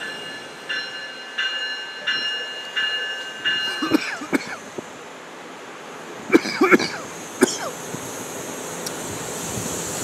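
NJ Transit multilevel commuter train at the platform: a two-pitched electronic warning tone beeps six times about 0.7 s apart, followed by sharp metallic clanks and short squeaks about four seconds in and again around six to seven seconds in, over a steady background noise.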